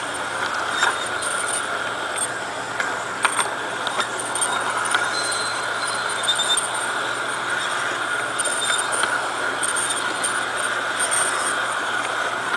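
LGB G-scale model streetcar running on garden-railway track: a steady electric-motor whine with scattered clicks of the wheels over rail joints and points, and a brief faint wheel squeal about five seconds in.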